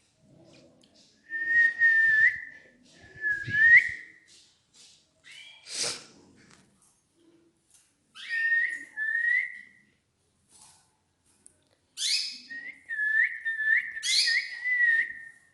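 Canary singing: clear, whistled phrases with quick upward flicks, delivered in several bursts separated by pauses, the longest a run of repeated notes near the end.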